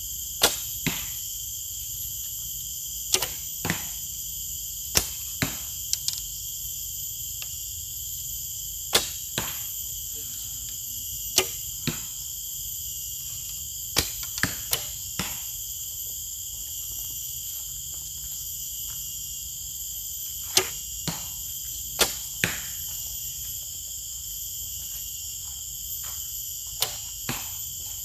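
Traditional horsebows being shot at 20 m, about nine shots. Each release makes a sharp snap of the bowstring, and about half a second later a second knock comes as the arrow strikes the target. Insects chirr steadily throughout.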